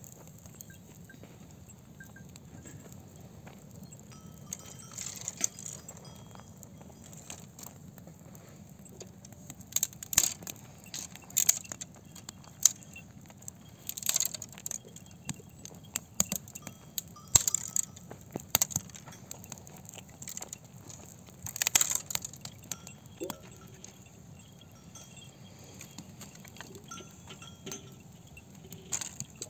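Dry brushwood snapping and crackling, in bursts of sharp cracks every few seconds, from the loose twigs and branches around a small open wood fire.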